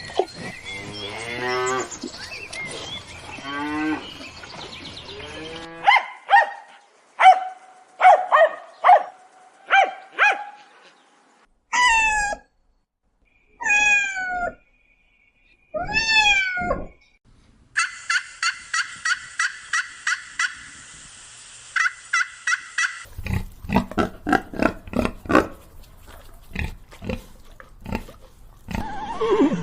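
A run of different farm-animal calls, one after another: cattle mooing in long, low, gliding calls for the first few seconds, followed by several shorter, higher calls from other animals, some repeated in quick rhythmic runs.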